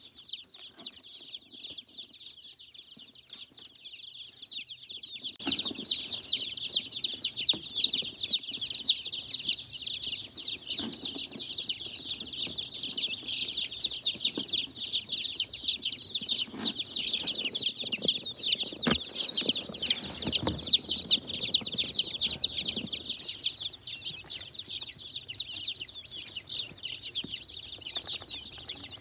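A crowd of baby chicks peeping nonstop, many high cheeps overlapping into a dense chorus that grows louder a few seconds in. Occasional soft knocks and rustling sound through the middle of it.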